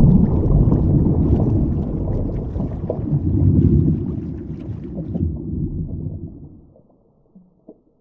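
A sharp hit at the start, then a heavy, muffled underwater rumble with gurgling bubbles and scattered small crackles. It dies away to silence about seven seconds in.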